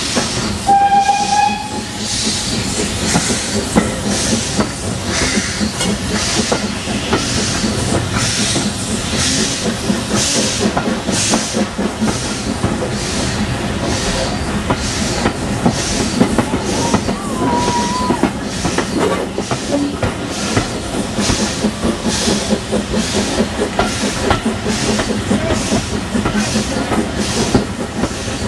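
Steam locomotive working a train, heard from a carriage window: its exhaust chuffs in a steady rhythm. A brief steam whistle sounds about a second in.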